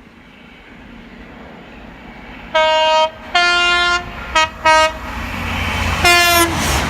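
Train horn on an approaching train: two long blasts, then two quick short toots, then one more blast near the end. Under it, the rumble of the train grows steadily louder as it draws near.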